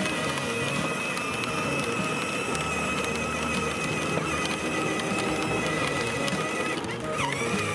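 Power Wheels Tow Mater 12-volt electric ride-on's motors and gearboxes whining steadily as it rolls over asphalt, pulling a second ride-on car on a tow rope. The whine dips in pitch briefly near the end, then recovers.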